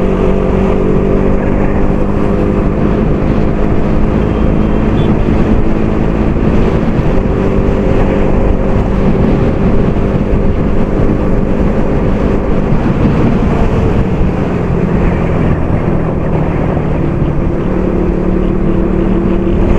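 Motorcycle engine running steadily at riding speed under heavy wind rush on the rider's microphone, its engine note holding fairly even and smearing briefly in the middle.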